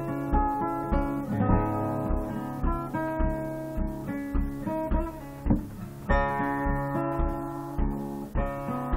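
Acoustic guitar being picked, with notes and chords changing over a steady low beat of about two pulses a second.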